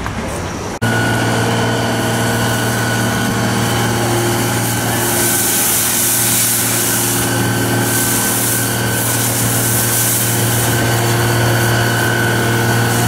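Fire engine's motor running at a steady, constant speed while it supplies water to the hose, with a hiss joining in for a few seconds in the middle.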